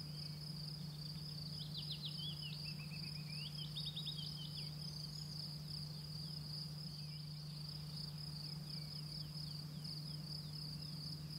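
A steady, high-pitched insect trill running without a break, over a low steady hum. Faint chirps of quick falling notes come and go, clearest a couple of seconds in.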